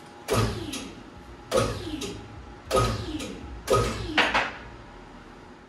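Metal clanking in an engine bay: four sharp knocks a little over a second apart, each followed by a lighter second knock and a ringing that falls in pitch.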